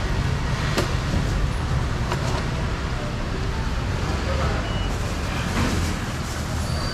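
Steady low rumble of street traffic and market background noise, with a few faint clicks.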